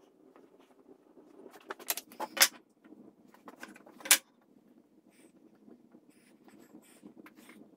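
Hard clacks and knocks of plastic and wood set down on a wooden workbench as red plastic corner clamping squares and wooden slats are placed for glue-up. There is a cluster of sharp clacks about two seconds in and one loud knock just after four seconds, then softer handling taps.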